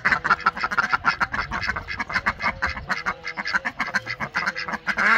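Runner ducks quacking in a rapid, unbroken run of short calls.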